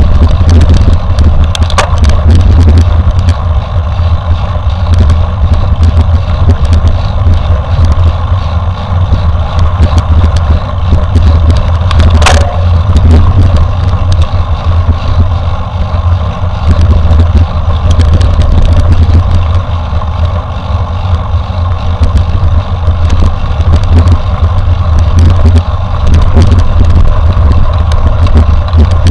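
Heavy low rumble of wind buffeting a bike-mounted camera's microphone during a mountain-bike ride, with frequent knocks and rattles from the bike over rough trail. One sharper knock comes about twelve seconds in.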